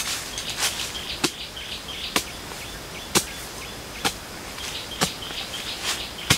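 A short-handled hand tool chopping into forest soil, digging with sharp strikes about once a second. Small birds chirp in the background.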